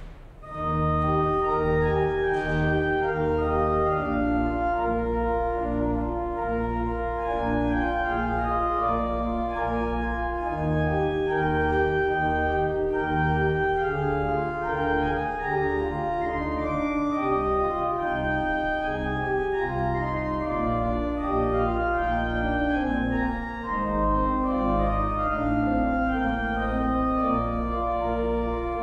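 Church pipe organ playing a postlude: full sustained chords that change every second or so over deep held pedal notes, starting about half a second in.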